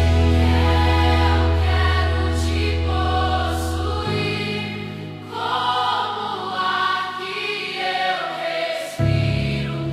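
Gospel worship music with choir-like singing over sustained keyboard and bass. The low bass drops out about four seconds in, leaving the voices over lighter accompaniment, and comes back in near the end.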